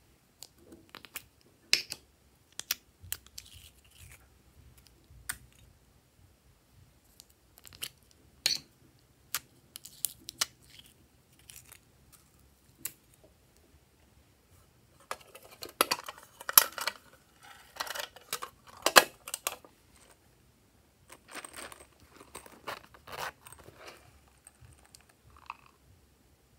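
Small plastic containers and packets being handled and opened: scattered sharp clicks and taps, then two denser stretches of crinkling and crackling in the second half.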